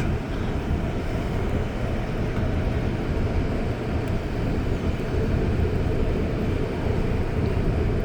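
Steady running noise of an REM automated light-metro train, heard from inside the car while it travels between stations.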